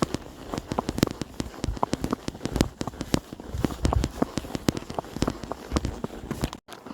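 Horse walking, its hooves crunching over dry ground with many sharp, irregular crackles and clicks; the sound cuts off abruptly near the end.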